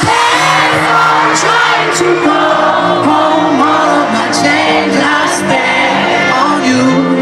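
Live pop-rock band playing in concert, with a lead voice singing over it and crowd whoops and shouts mixed in.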